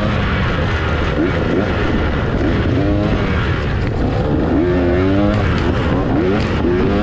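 Off-road dirt bike engines revving hard, their pitch rising again and again with more than one engine heard at once.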